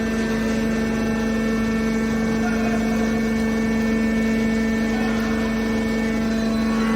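Y81F-160B hydraulic scrap metal baler running, its hydraulic pump giving a steady hum at one pitch over a mechanical noise.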